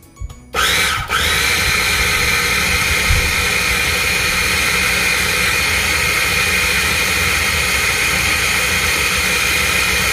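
KitchenAid 3.5-cup mini food processor running on its chop setting, its motor whirring as the blade grinds spices, oil and water into a wet paste. It starts about half a second in, cuts out for a moment, then runs steadily.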